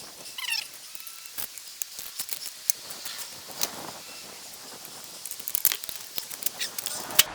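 Scattered sharp clicks and taps, irregular and unevenly loud, with a short chirp about half a second in.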